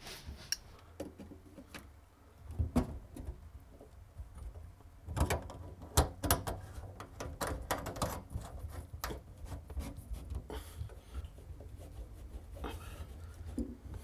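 Chrome dishwasher tailpiece and plastic slip nuts being fitted to a sink drain by hand: scattered clicks, knocks and rubbing of the pipe and nuts, busiest in the middle of the stretch.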